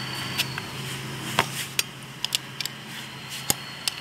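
Sharp metallic clinks and taps of a wrench, bolts and washers being handled while mounting an industrial sewing machine motor under its table, about eight irregular strikes over a steady low hum.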